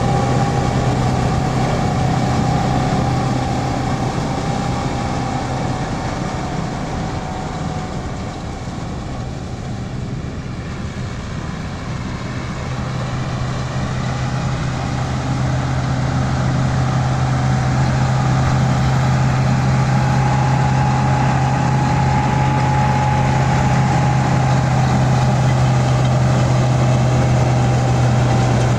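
Massey Ferguson 385 diesel tractor running steadily under load while driving a straw chopper that blows chopped straw into a trailer: a steady low engine hum with a steady higher whine on top. It gets fainter for a few seconds about a third of the way in, then fuller again.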